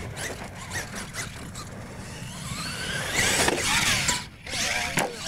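Radio-controlled monster truck's electric motor whining, rising and falling in pitch as the throttle is worked, over the rush of its tyres on dirt.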